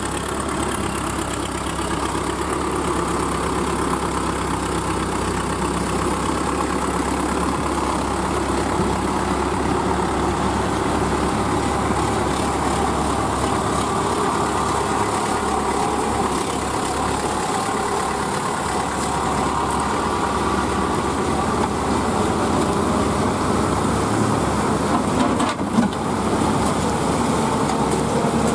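Diesel tractor engines running steadily as tractors drive through deep mud one after another, with a brief knock near the end.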